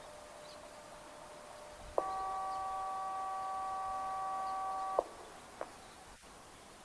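Outdoor disaster-prevention radio loudspeaker sounding one steady electronic chord for about three seconds. The chord starts suddenly and cuts off with a click, and a short click follows.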